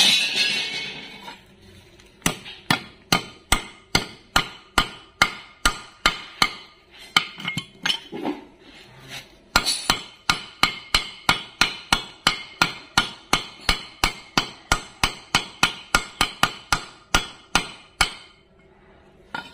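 Small steel hammer tapping a greased 6001 ball bearing into the steel bearing housing of a swing arm: sharp metal-on-metal taps, about three a second, with a short pause partway through. A brief clatter comes just before the tapping starts.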